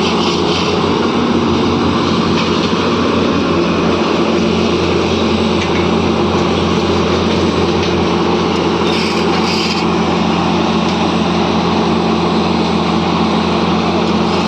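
A small engine running steadily at a constant speed, giving an even drone.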